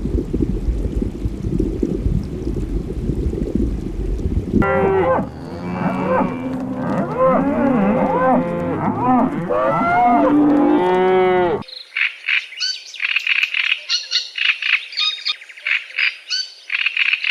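Cattle mooing amid a chorus of overlapping farm-animal calls. The sound changes abruptly twice: a low rumbling stretch, then many calls rising and falling in pitch, then, about twelve seconds in, rapid high bird chirping.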